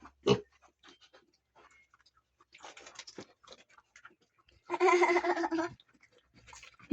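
Pigs grunting and snuffling, with one louder, longer pitched call about five seconds in.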